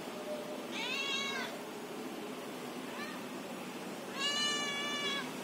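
Domestic cat meowing: a short meow about a second in, a faint brief one near three seconds, and a longer, louder meow a little after four seconds.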